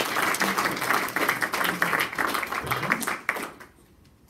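A small audience applauding, the clapping dying away about three and a half seconds in.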